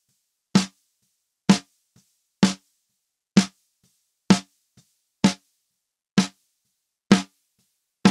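Single snare drum hits repeating a little under once a second, about nine in all, with two much fainter taps in between. The snare track is being played back through the Ceilings of Sound Pro EQ plugin.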